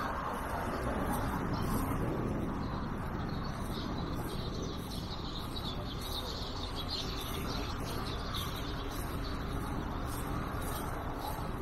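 Street ambience: a steady hum of road traffic, a little louder in the first couple of seconds, with high chirping in the middle of the stretch.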